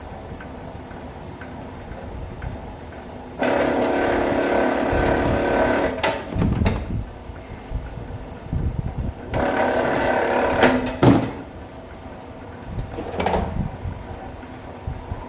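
Vevor wire stripping machine running twice as wire is fed through, a steady motor hum that starts and stops abruptly and lasts a couple of seconds each time, with knocks and clatter from handling the wire between the runs.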